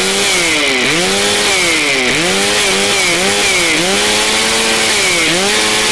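Two-stroke chainsaw running, its revs climbing and dropping back several times in a row. The owner blames a stretched throttle cable for the saw not holding a steady idle.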